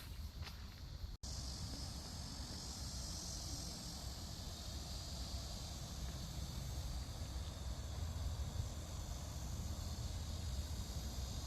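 Outdoor field ambience: wind rumbling on the microphone under a steady high insect chirring that swells a little in the middle. A few light footstep ticks come in the first second, before a sudden cut.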